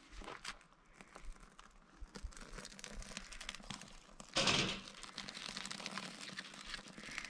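Dry birch bark crinkling and rustling as it is handled and pushed in under kindling, with a louder rustling scrape about four seconds in. Fine crackles follow as the lit bark burns.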